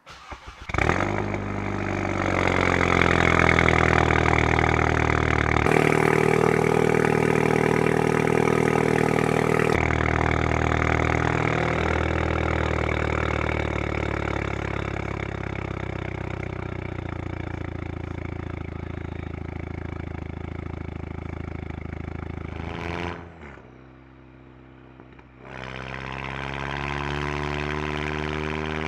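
2011 Volkswagen GTI Mk6's turbocharged 2.0-litre four-cylinder, with a Unitronics downpipe, resonator delete and stock muffler, heard straight at the exhaust tip: it starts about half a second in, flares up, then settles into a steady idle. About 23 s in the sound drops away, then returns about two seconds later, climbing in pitch.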